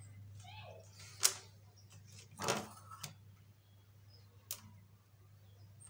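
A few scattered light clicks and taps as small plastic parts and tubing are handled and fitted on a homemade PVC model seed drill, the sharpest about a second in. A low steady hum runs underneath.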